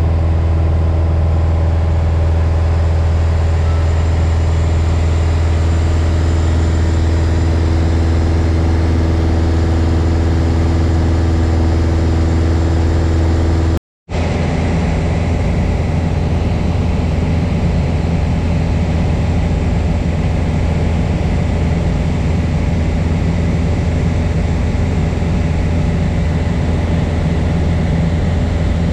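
Single-engine piston aircraft's engine and propeller running steadily in cruise, heard from inside the cockpit as a loud, even drone. The sound cuts out for a split second about halfway through.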